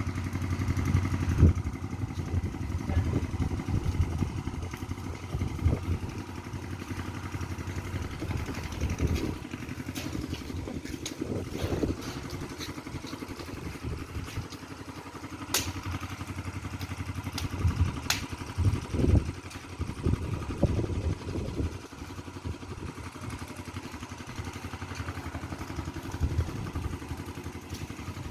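An engine running steadily, with scattered clicks and knocks.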